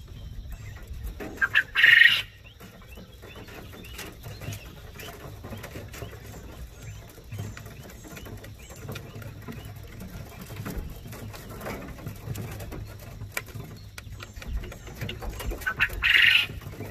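Quail calling, with two loud, high-pitched calls, one about two seconds in and one near the end. Between them are faint ticks of the birds' beaks pecking at a red plastic drinking nipple on a bucket waterer.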